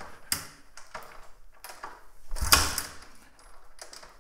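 Attempt to start a 1997 Suzuki DR350's single-cylinder engine, which does not catch: a few mechanical clacks, then one heavier thump about two and a half seconds in, with no running engine after it.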